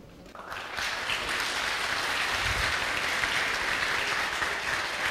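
Audience applause, starting about half a second in, building quickly and then holding steady.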